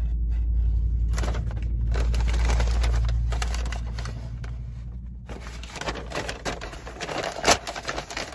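Paper takeout bag rustling and crinkling as it is handled right up against the microphone, with a low rumble of handling noise for the first few seconds. Then a run of sharp paper crackles, the loudest a little before the end.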